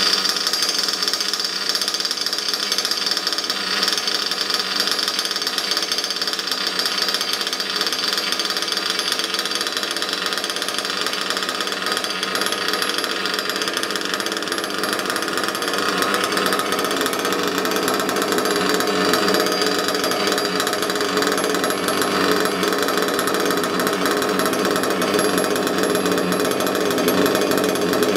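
Reds XR21 two-stroke nitro glow engine in an RC buggy running steadily in place during break-in. Its note shifts about halfway through.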